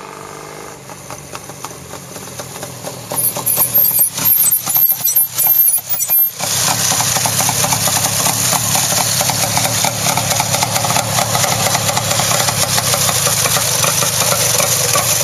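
Vintage two-stroke twin motorcycle engine, a Scott Flying Squirrel, running as the bike rides across the lot and grows louder with uneven bursts of throttle. About six seconds in it cuts to a close, steady running note.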